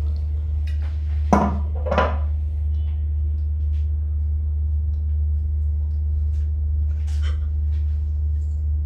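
Steady low room hum, with two short sharp sounds about a second and a half and two seconds in, and another near seven seconds.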